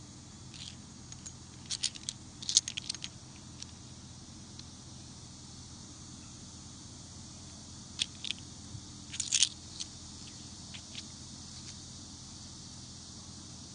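Metal coin pendants clicking and scraping lightly against each other as they are shifted in the hand. A cluster of small clicks comes about two to three seconds in and another around eight to ten seconds in, over a faint steady background hiss.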